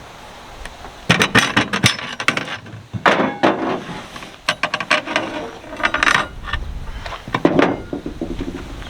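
Steel tire iron clinking and scraping against a tractor wheel rim in several short bouts as the tire bead is levered over the rim.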